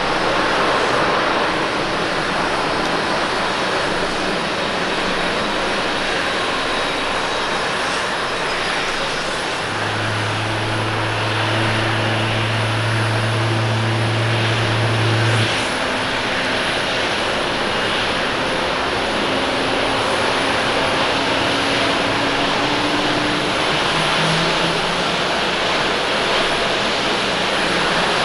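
Jet airliner engines running through landings on a wet runway: a steady, unbroken rush of noise. A low steady hum joins in about ten seconds in and stops after about six seconds.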